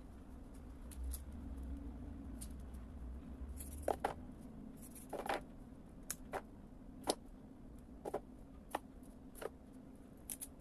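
Celery stalks being cut into small strips: a series of short, crisp cuts at irregular intervals, about one a second, starting about four seconds in.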